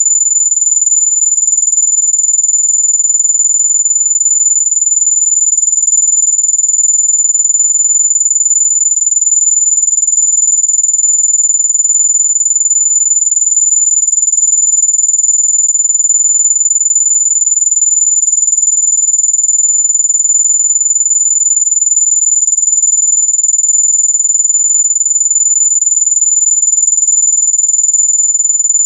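A single steady, very high-pitched electronic tone, held without change: a mosquito-repellent tone of the kind said to keep mosquitoes away.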